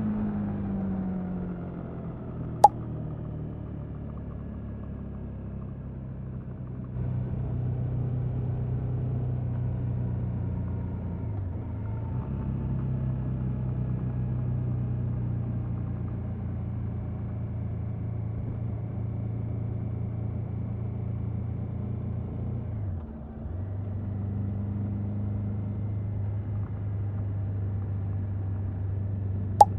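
KTM 1290 Super Adventure S motorcycle's V-twin engine running at low, fairly steady revs on its stock exhaust, its pitch drifting slowly down. It gets a little louder a few seconds in and dips briefly about three quarters through. There is a sharp click a few seconds in and another at the very end.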